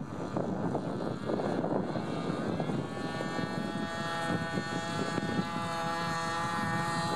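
Radio-controlled model plane's motor and propeller spinning up about two to three seconds in, then running at a steady high-pitched whine. Wind noise on the microphone comes before it.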